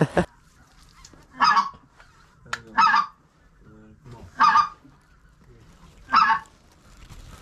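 Goose honks: four single honks, each short, spaced about a second and a half apart.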